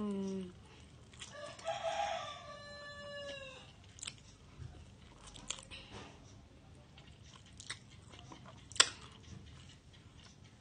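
A rooster crows in the background, one drawn-out call of about two and a half seconds starting about a second in and falling in pitch at its end. Around it, a person eats instant noodles with a fork: a brief falling hum at the start, then chewing with scattered sharp clicks, the loudest a little before the end.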